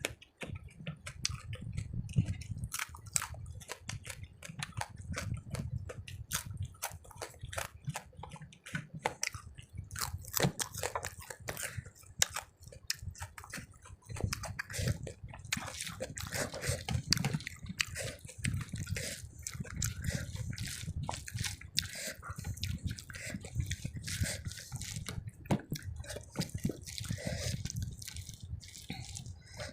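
Close-up chewing of rice and curry, with many wet mouth clicks and smacks and some crunching.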